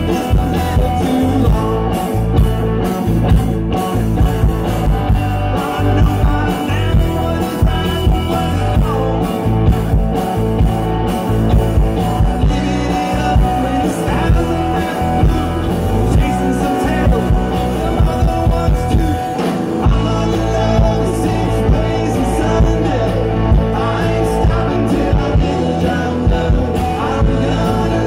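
Southern rock band playing live: electric guitars and a drum kit, with a man singing lead into the microphone.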